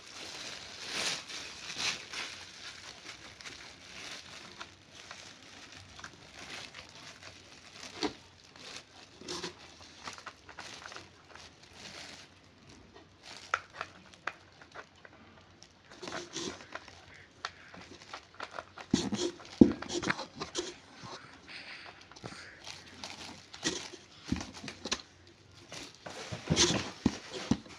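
Plastic packaging crinkling and rustling as pressure-washer parts are unwrapped and handled, with scattered light clicks and knocks of the parts; the loudest knocks come a little past the middle.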